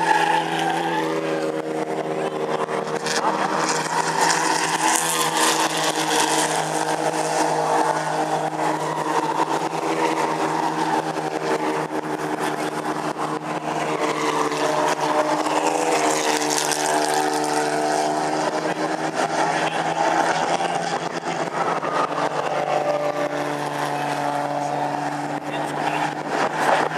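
Racing cars' engines running hard on a circuit as cars pass one after another, their engine notes rising and falling in pitch.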